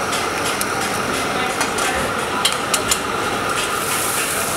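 Metal spatula clinking and scraping on a flat griddle several times, over a steady hiss of frying and background noise.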